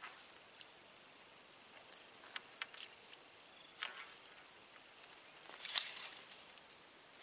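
Steady high-pitched drone of an insect chorus, with a few short faint clicks over it, the loudest nearly six seconds in.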